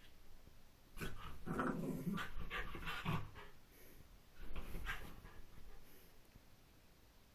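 A pet animal vocalising in two rough, breathy bursts, the first lasting about two seconds from about a second in, the second shorter, about four and a half seconds in.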